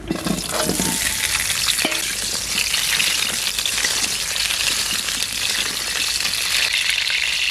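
Pointed gourds (potol) sizzling as they fry in hot oil, a steady dense hiss that comes up as they go into the pan.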